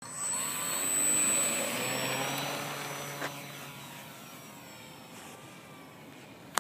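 Radio-controlled model T-28 Trojan's motor and propeller whining on its takeoff run, loudest about a second in, then fading steadily as the plane climbs away. A sharp click right at the end.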